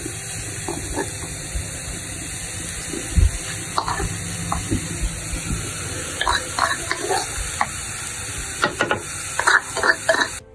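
Chopped banana stem sizzling steadily in a clay pot over a wood fire. A spatula scrapes and taps against the pot now and then, more often in the second half.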